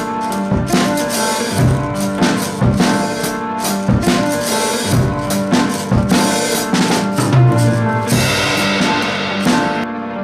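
Background music with a drum kit keeping a steady beat under sustained instrumental notes; the drums drop out near the end.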